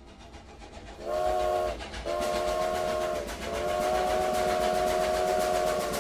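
A train approaching with a low rumble that grows louder, then sounding its horn three times: two shorter blasts and a long third one, each a steady chord of several notes.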